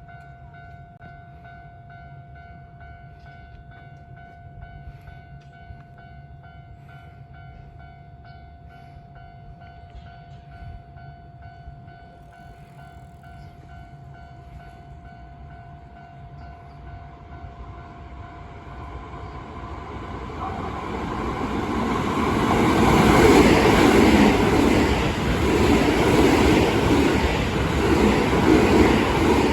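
Level-crossing warning bell ringing steadily for the first twenty seconds or so. Then a Keisei 3700 series electric train approaches and passes, its wheels and running gear growing into a loud rumble that peaks over the last several seconds.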